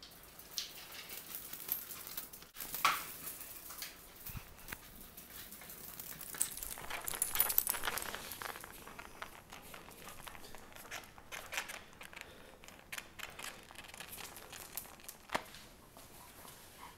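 Basset hounds playing: scattered light clicks and rustling from their scuffling, loudest about seven seconds in.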